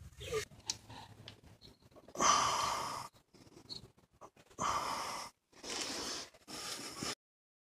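A person breathing out heavily close to the microphone, four long breaths, the first and loudest a little over two seconds in, with faint handling noises between them.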